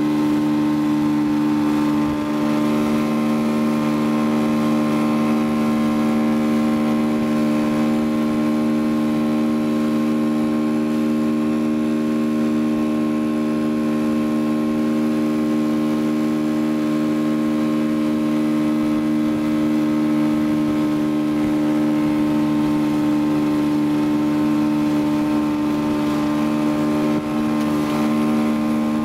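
Motorboat engine running at a steady, unchanging speed while towing a tube, with the rush of water and wake underneath.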